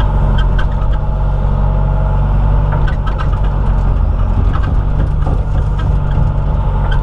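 John Deere 190E excavator's diesel engine running steadily under working load, with occasional light clicks and knocks from the machine.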